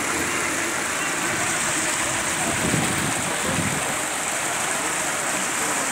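Muddy floodwater rushing down a swollen river channel: a steady, even rush of water.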